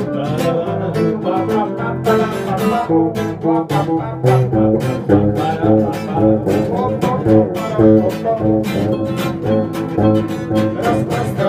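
Instrumental music led by plucked and strummed acoustic guitar, with many sharp picked notes.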